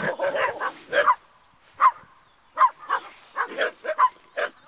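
Dog barking: a quick run of sharp barks at first, then single barks every half second to a second.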